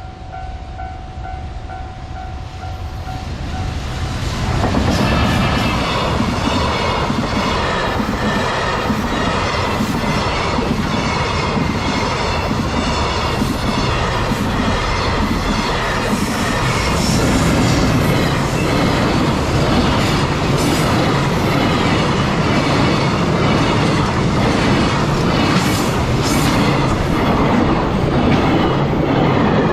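A level-crossing warning bell rings, then about four seconds in a freight train hauled by a JR Freight EF210 electric locomotive starts passing. Its wheels clatter over the rail joints in a steady rhythm.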